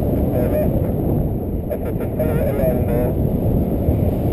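Wind rushing over the microphone of a paraglider in flight, a loud steady low rumble, with a few short wavering tones that come and go.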